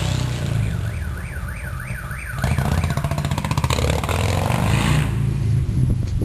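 Car alarm siren warbling rapidly up and down over an Indian Chief motorcycle's V-twin engine running. The warble stops about two and a half seconds in, and the engine is louder after that.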